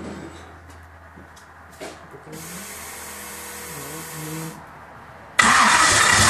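A starter motor begins cranking the Countach replica's engine suddenly near the end, loud and whirring; the engine, which has a no-start problem, is not running on its own.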